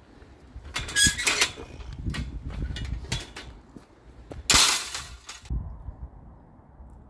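Metal deer-fence gate clanking as it is opened and passed through: a run of metal clatters and knocks, then the loudest clang about four and a half seconds in as the spring-closed gate swings to.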